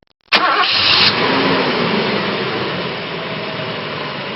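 An engine running steadily. It cuts in suddenly, is loudest in its first second, then eases slightly and holds.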